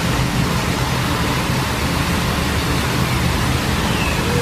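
Steady, loud rushing noise with a low hum beneath it, unchanging throughout.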